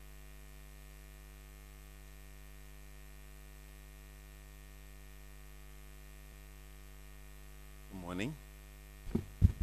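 Steady electrical mains hum, a low buzz of several constant tones. A short rising pitched sound comes about eight seconds in, and a few brief short sounds follow near the end.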